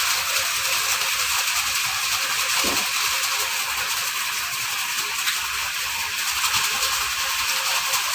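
Raffia-winding machine running, a steady fast rattle with a hiss of tape spooling.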